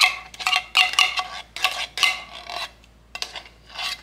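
Metal spoon scraping and clinking inside a tin can, working thick condensed cream of mushroom soup out into an enamel bowl. A quick run of ringing scrapes and knocks breaks off about two and a half seconds in, then a few more follow near the end.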